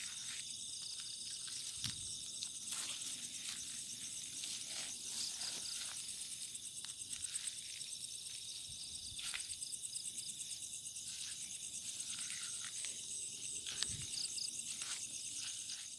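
Night chorus of crickets, a steady high pulsing trill, with scattered soft rustles and clicks underneath.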